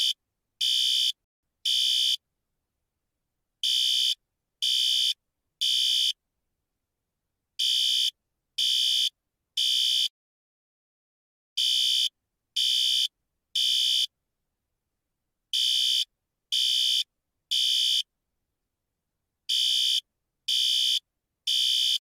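System Sensor SpectrAlert Advance fire alarm horn sounding the Code-3 temporal pattern: three short, high-pitched, harsh blasts about a second apart, then a pause of about a second and a half, repeated over and over. This three-pulse pattern is the standard fire evacuation signal.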